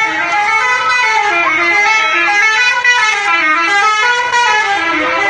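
Bus 'telolet' musical air horn playing a tune: several horn tones sound together and step up and down in pitch, note after note.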